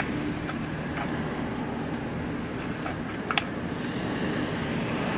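Steady low rumble of outdoor background noise with a few small clicks from hands working a walk-in cooler's defrost time clock. The sharpest click comes about three and a half seconds in.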